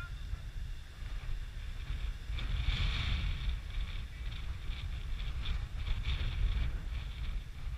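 Wind buffeting a small camera microphone: a steady, low rumbling noise.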